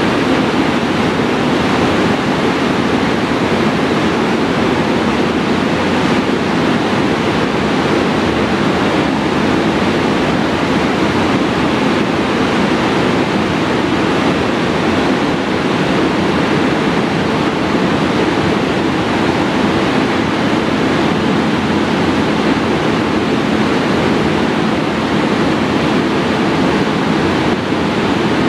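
A DB class 120 electric locomotive's cooling blowers running as a loud, steady rush as the train starts its departure. A low steady hum joins about two-thirds of the way through as the locomotive begins to creep forward.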